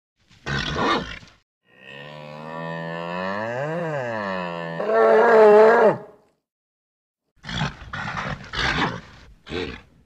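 A bull calling. A short breathy snort comes about half a second in, then one long drawn-out bellow of about four seconds that swells louder and wavers at the end, then a run of short breathy snorts near the end.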